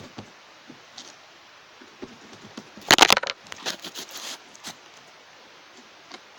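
Slime being squeezed and pressed, with sticky crackling and popping clicks. A dense burst of crackles comes about three seconds in, followed by scattered pops.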